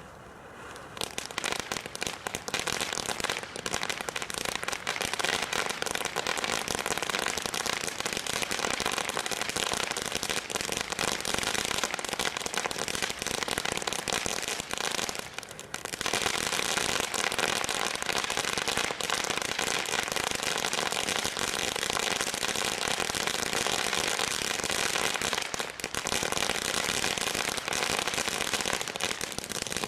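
Consumer firework from a selection box going off: a dense, continuous crackling and popping that starts about a second in, eases briefly twice, and carries on.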